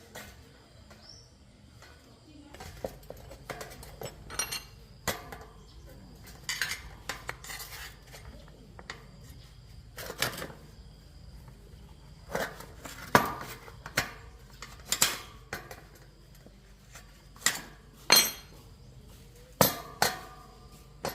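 Metal tools and bicycle parts clinking and knocking while they are handled and worked on, in irregular sharp strikes, some ringing briefly. A faint low hum runs underneath from a couple of seconds in.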